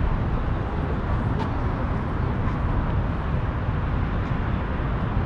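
Steady low rumble of road vehicle noise.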